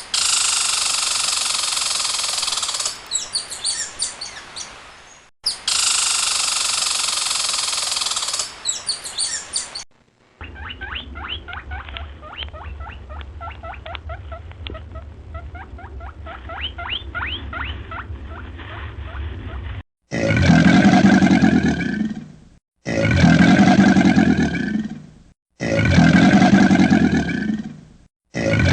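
A run of separate animal call recordings. First a noisy clip that plays twice, then a long stretch of rapid high-pitched chirping over a low hum, then three drawn-out low calls in a row.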